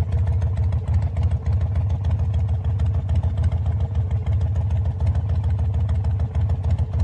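Harley-Davidson V-twin engine idling steadily with a deep, pulsing rumble.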